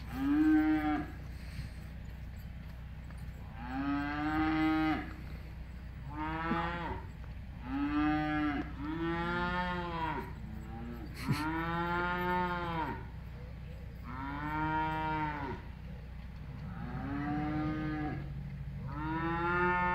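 Cattle mooing over and over: about nine long calls, each rising and then falling in pitch, coming every two seconds or so.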